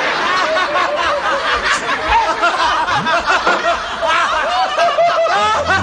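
Audience laughter: many people chuckling and laughing together, a dense, continuous wash of overlapping voices.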